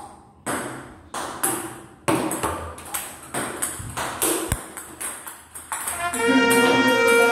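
Celluloid-type plastic table tennis ball clicking off a rubber paddle and bouncing on the table: a quick series of sharp ticks, a few tenths of a second apart. About six seconds in, brass-like fanfare music comes in over them.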